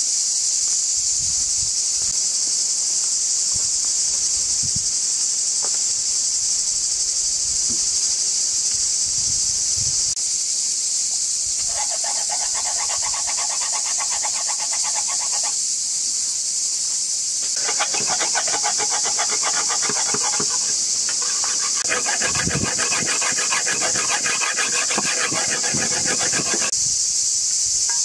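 Steady, high-pitched chorus of insects in summer foliage. A lower, rapidly pulsing buzzing call joins in three stretches of a few seconds each, from about twelve seconds in.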